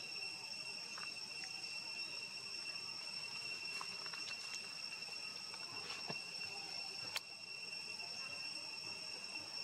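Steady high insect drone holding one unbroken tone, with faint scattered ticks and a single sharp click about seven seconds in.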